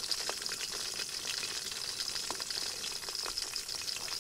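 Oil sizzling in a frying pan: a steady crackling hiss with scattered sharp pops.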